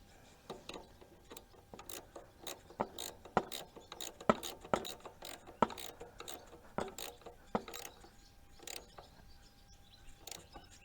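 Socket ratchet clicking in short, irregular strokes as a nut is tightened down on a newly fitted garden-tractor starter.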